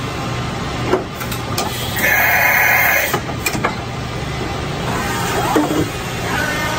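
1995 Enshu 650VX CNC vertical mill running: a steady machine hum with scattered clicks and knocks, and a loud high-pitched screech lasting about a second starting around two seconds in.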